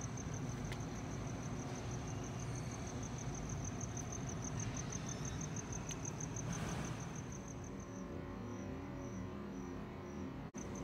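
A cricket chirping in a rapid, even pulse, then in sparser separate chirps near the end, over a steady low rumble of outdoor background noise.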